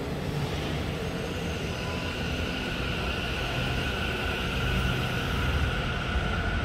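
Taichung Metro Green Line EMU pulling out of the station and accelerating away, with a steady rumble from wheels on the track. About a second in, a steady two-tone electric whine from the train's traction drive sets in and holds.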